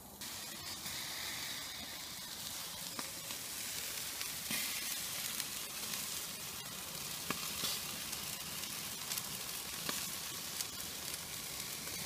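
Chicken drumsticks sizzling on the grate of an open charcoal grill, a steady hiss dotted with small crackles and pops.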